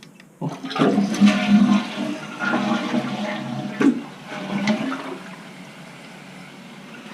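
Toilet flushing: water rushes out of the tank into the bowl, starting about half a second in and easing off after about four seconds into a steady quieter hiss as the newly installed Fluidmaster fill valve refills the tank.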